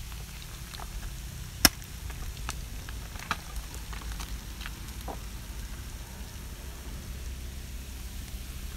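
Outdoor background noise: a steady low rumble with scattered small ticks and clicks, one sharper click about one and a half seconds in.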